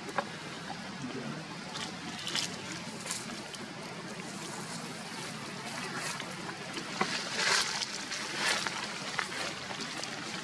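Steady outdoor background hiss with scattered short rustles and clicks, the loudest cluster of rustling about two-thirds of the way in.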